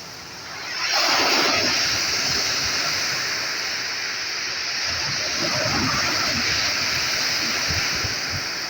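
Sea waves: a wave breaks about a second in, followed by a long, steady rush of surf.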